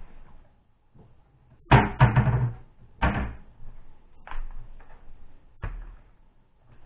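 Kitchen clatter: a series of sharp knocks and clunks, a cluster of heavy ones about two seconds in, another about a second later, then a few lighter single knocks.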